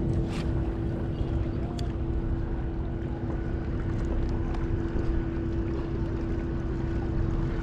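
Wind rumbling on the microphone over a steady low drone that holds one pitch throughout, with a brief sharp swish about half a second in as the rod is cast.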